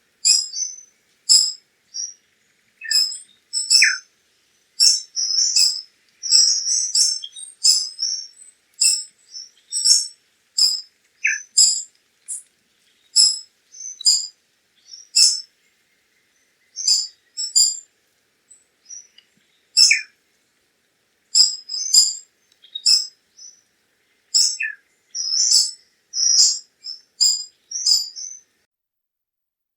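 A tanager calling in a long, irregular series of short, high chips and twitters, with a few lower notes that slide downward.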